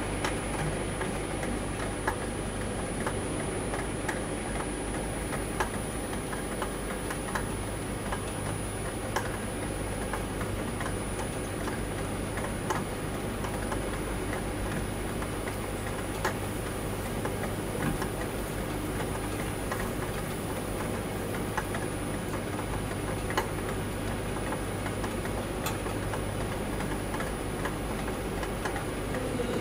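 Wave soldering machine running: a steady mechanical hum from its finger-chain conveyor, with sharp clicks at irregular intervals of a second or two and a thin, high, steady whine.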